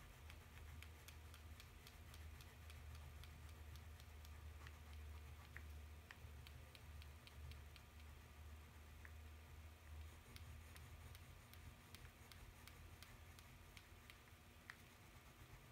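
Faint, quick ticking and scratching of a maroon crayon being stroked back and forth on paper to colour in a shape, over a low steady hum.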